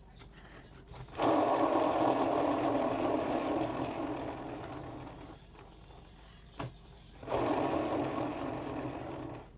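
Paint-pouring spinner turntable whirring as it spins a poured canvas to spread the paint. There are two spells, each starting suddenly and slowly dying away: the first about a second in, the second past the middle.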